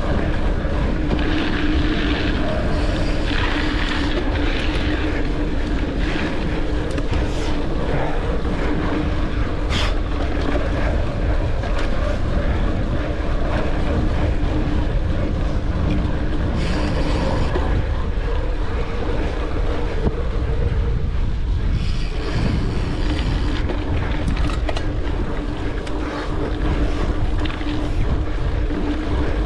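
Wind rushing over the camera microphone and a mountain bike's knobby tyres rolling over dirt singletrack at speed, with a steady hum and scattered knocks and rattles from the bike over the trail.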